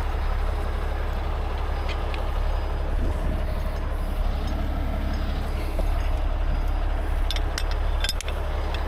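A 75-ton rotator tow truck's diesel engine runs steadily at close range, a constant low rumble. A few sharp metal clinks come about seven to eight seconds in as the winch-cable hook and swivel are handled.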